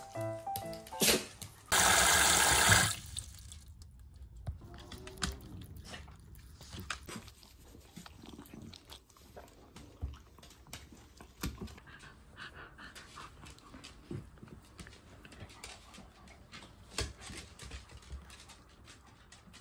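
A short rush of running water about two seconds in. After it, faint scattered clicks and taps as several toy poodles move on a wooden floor and drink from a plastic water bowl.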